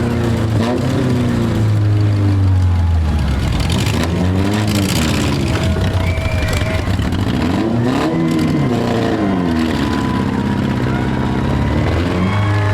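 Four-cylinder demolition derby cars' engines running loud, revving up and falling back twice as the cars accelerate, with a few sharp knocks from impacts near the middle.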